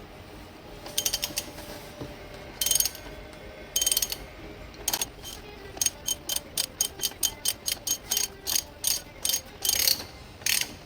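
Ratchet wrench on an axle tool clicking as it unscrews a motorcycle's front axle: short bursts of rapid clicks at first, then a steady run of single clicks, about three or four a second.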